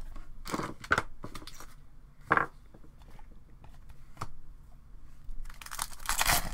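Trading cards and foil pack wrappers being handled: scattered short rustles and crinkles, with a longer run of crinkling near the end.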